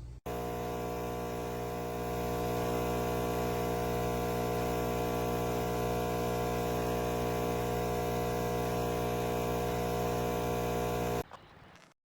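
Nespresso CitiZ capsule machine's pump buzzing steadily as it pushes water through the capsule. It gets a little louder after about two seconds and cuts off abruptly near the end.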